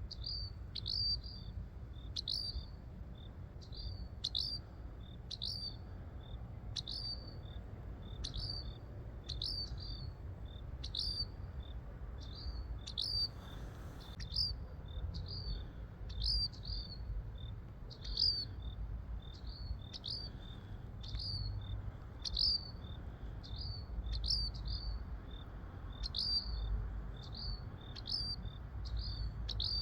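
A small bird calling one short, sharp chirp over and over, a little more than once a second, at an even pace. There is low wind rumble underneath.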